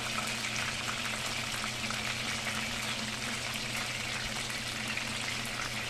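Food frying in hot oil in a pan, a steady sizzle with many small crackling pops as the oil spatters. A steady low hum runs underneath.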